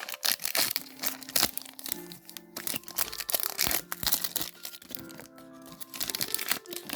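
Foil booster-pack wrapper crinkling and tearing open in rapid, irregular crackles, over background music with sustained notes.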